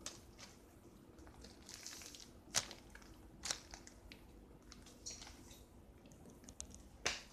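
Clear plastic packaging crinkling as a bagged foam squishy toy is handled, in several short crackles, the sharpest about two and a half seconds in and near the end.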